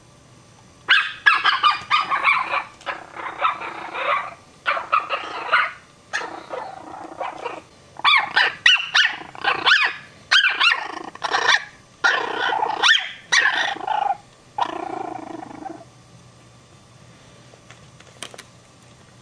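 A dog barking repeatedly in loud runs of sharp, high-pitched barks with short pauses between runs, stopping a few seconds before the end.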